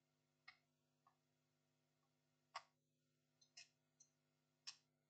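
Faint, scattered sharp clicks and light taps, about seven in all, unevenly spaced over a steady faint electrical hum.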